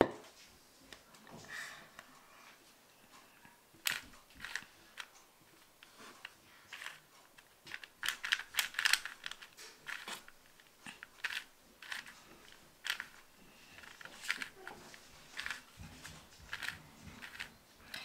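A 4x4 Rubik's Cube being turned by hand: its plastic layers click and clack in quick, irregular runs of short strokes.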